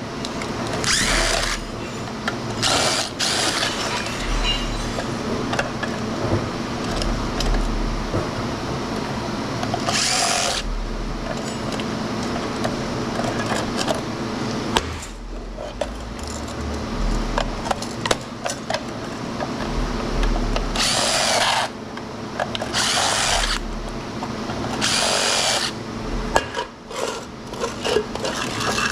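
A power tool such as a drill running in several short bursts over a steady background hum.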